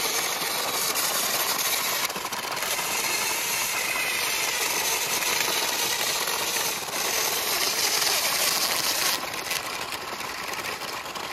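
Electric motors and gearboxes of two toy RC cars, a rock crawler and a double-sided stunt car, running hard in a steady buzz as they pull against each other on a tow rope. The sound eases slightly near the end.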